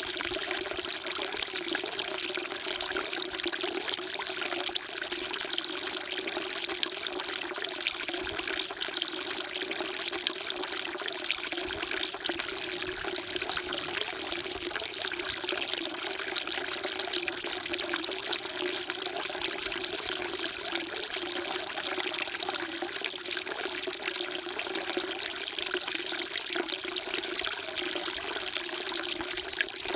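Water pouring steadily from a spout into a stone temple water trough (sugwak), an even, unbroken splashing.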